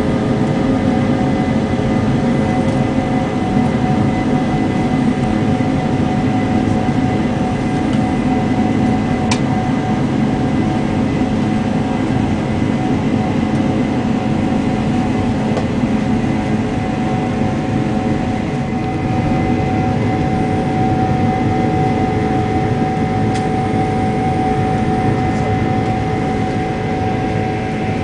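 Jet airliner's engines and cabin noise heard from inside the cabin during takeoff: a loud, steady rush with several steady tones held throughout.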